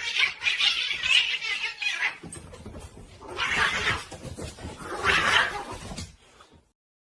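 A domestic cat making harsh, breathy cries: one long stretch, then two shorter ones.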